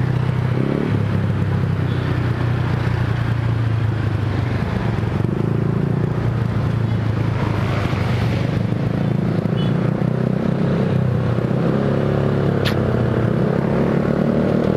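Honda Vario 150 scooter's single-cylinder engine running through an F2Racing CL.LONG aftermarket exhaust at a steady low cruise in slow traffic, a constant drone over road and wind noise. There is one sharp click near the end.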